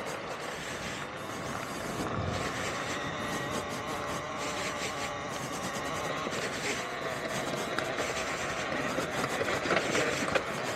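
Talaria Sting R electric dirt bike being ridden over a rough trail: a faint motor whine under steady rolling noise, with frequent rattles and knocks from the bike over the rough ground, a few louder ones near the end.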